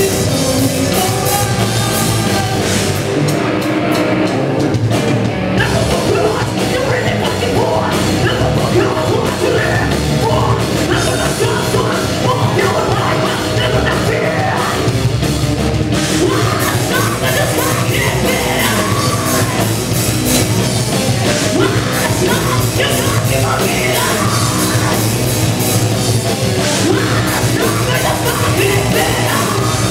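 A live metal band playing at full volume: distorted electric guitars, bass and drums, with a female vocalist singing and yelling into the microphone. The cymbals and high end drop back for a moment about three to six seconds in.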